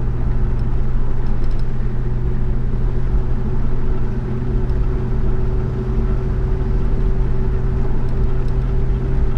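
Holden HK car heard from inside the cabin while cruising at a steady speed: a steady, even drone of engine and road noise.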